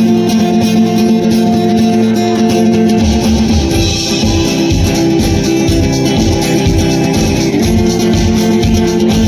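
Loud music with guitar, and a steady beat that comes in about three seconds in.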